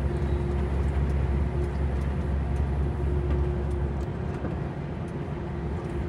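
Volvo FH log truck on the move: a steady low engine drone with road noise and a constant hum. About four seconds in, the deepest rumble eases off.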